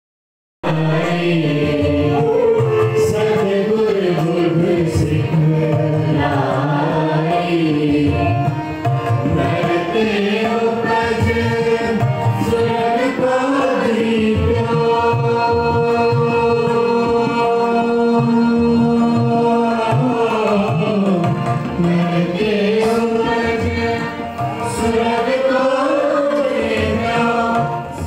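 Sikh Gurbani kirtan: a group singing a hymn in long, held melodic lines, accompanied by tabla, heard through a PA system.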